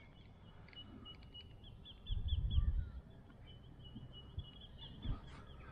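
Birds calling: runs of quick, high, repeated notes. A louder low rumble comes in about two seconds in and lasts under a second.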